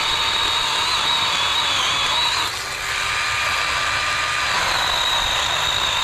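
Chainsaw running at full throttle, cutting the backcut on a tree being felled; its pitch and level dip briefly a little over two seconds in as the chain takes load.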